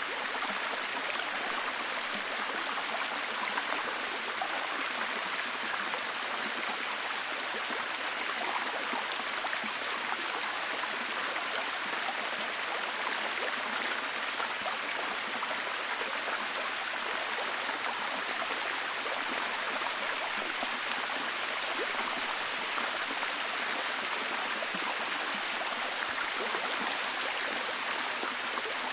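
Steady rain falling, an even hiss dense with fine pattering drops.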